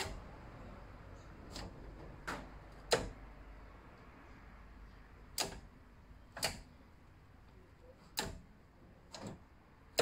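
DKW F89P gear-shift linkage being worked through the gears: a series of about eight short, sharp metallic clicks at uneven intervals as the rod and bracket move from position to position.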